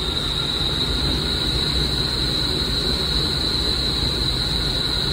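Steady roar of the rushing air and fans of an indoor skydiving wind tunnel, with a constant high-pitched whine over it.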